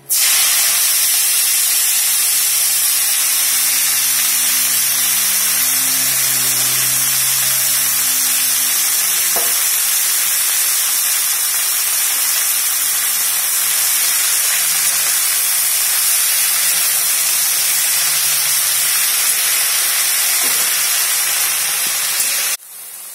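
Wet, freshly washed amaranth (tandulja) leaves dropped into hot oil in a steel kadhai: loud, steady sizzling that starts suddenly and drops away abruptly near the end.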